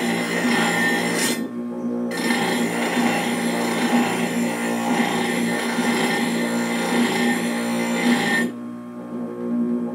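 A bench grinder's motor hums steadily while its stone grinds the tungsten-carbide (widia) tips of a large circular saw disc. There is a hiss of stone on carbide in two spells: a short one at the start, and a long one from about two seconds in that stops about eight and a half seconds in.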